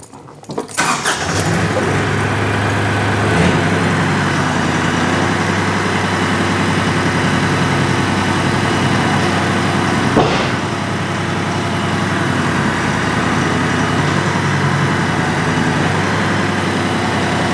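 Kioti compact tractor's diesel engine starting up about half a second in, then running steadily at idle, with a single clunk about ten seconds in.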